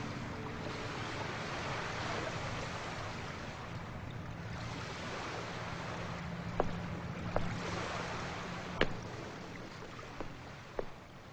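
Steady rushing background noise, with five or six sharp knocks scattered through the second half.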